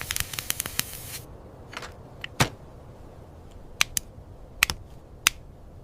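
Plastic LEGO bricks clicking: a quick run of sharp clicks in the first second, then scattered single clicks, the loudest about two and a half seconds in.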